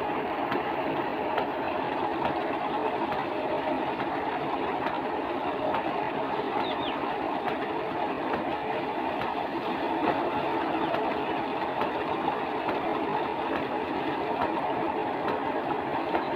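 Tubewell outlet pipe gushing a thick, steady stream of water into a full tank, with splashing as a man washes his arms and legs in the falling water.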